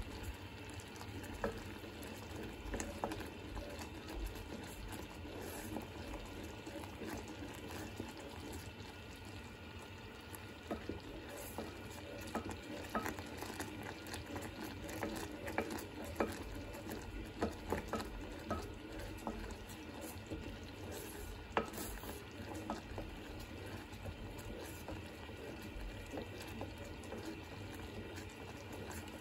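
Agar-agar and water boiling in a small saucepan, bubbling steadily while a wooden spoon stirs it without pause, with scattered small clicks of the spoon against the pan. The solution is being kept at the boil until it thickens enough to run off the spoon in a thread.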